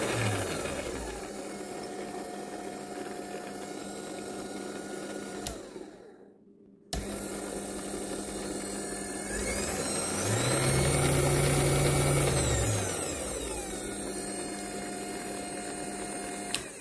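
Proxxon PD 250 mini lathe's motor and spindle running with a steady whine. It is switched off with a click about five and a half seconds in and winds down, comes back on with a click a second and a half later, speeds up with a rising whine about ten seconds in and slows back down about three seconds later, and is switched off with a click near the end.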